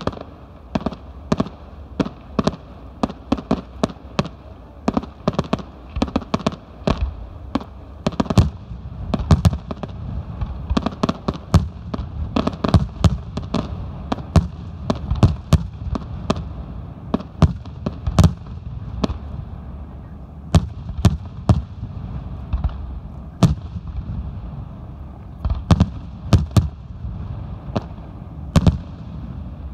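Aerial firework shells bursting in rapid succession: a dense run of sharp bangs, several a second, over a continuous low rumble, thinning out a little in the last third.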